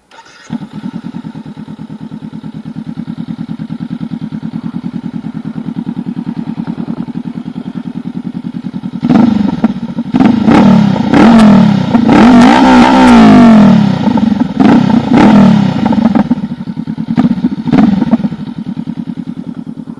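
2019 Honda CB500X's parallel-twin engine, breathing through a replica Mivv Suono slip-on exhaust, starts about half a second in and settles into a steady idle. From about nine seconds in it is revved hard several times over some seven seconds, then drops back to idle with a couple more short blips near the end.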